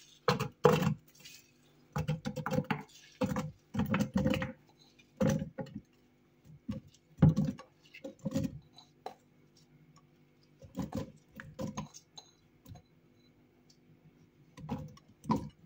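Handfuls of chopped apple and pear pieces dropping into a plastic blender beaker: irregular clusters of light taps and clattering knocks.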